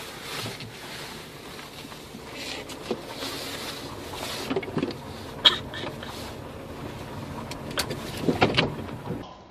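Car windshield wipers running: a steady motor whir with the blades sweeping the glass, broken by several sharp knocks and scrapes, the loudest about five and a half seconds in and a cluster near the end.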